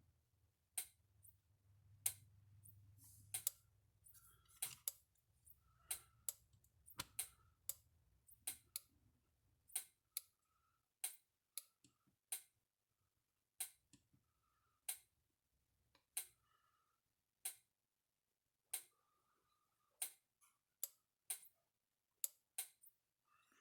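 Kencove EKD3 3-joule electric fence charger ticking as it fires, one sharp click about every 1.3 seconds: the unit pulsing normally on its bench power supply after its battery connections were cleaned.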